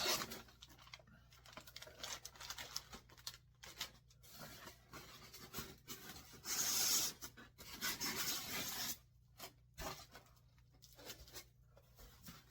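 Rustling and scraping of packaging as ceiling-fan parts are unpacked and handled, in irregular bursts, with one louder rustle lasting about a second roughly seven seconds in.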